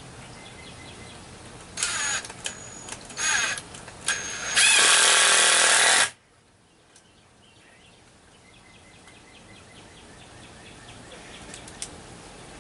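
Power drill run in three short bursts, then one steady run of about a second and a half that stops abruptly.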